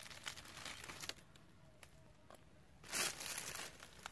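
A knife cutting through a pumpkin's tough stem, with dry vine leaves crackling and rustling around it; a louder rustling scrape about three seconds in.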